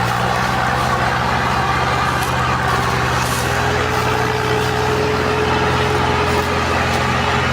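Combine harvester's diesel engine running steadily, with a thin whine above the drone that rises slightly in pitch about midway through.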